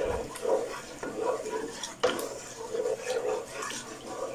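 A spoon stirring coconut milk in a pot: liquid swishing, with the spoon scraping and knocking against the pot in uneven strokes and one sharper knock about two seconds in.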